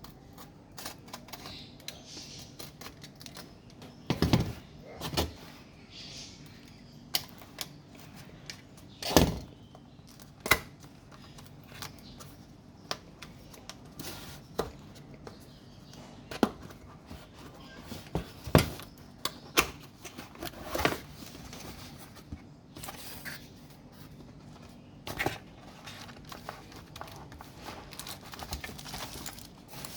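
Irregular clicks and knocks from a Keychron K4 mechanical keyboard with blue switches being handled and pressed, with several louder thumps scattered through.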